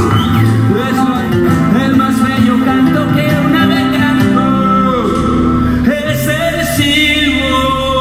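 Live acoustic music: a man singing to his own strummed acoustic guitar, with a second plucked string instrument playing along.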